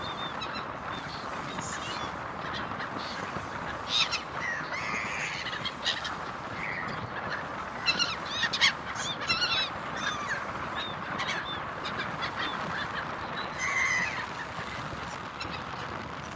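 Gulls calling in short, repeated cries, loudest a few times through the middle, over the steady rush of a moving ferry's wake and engine.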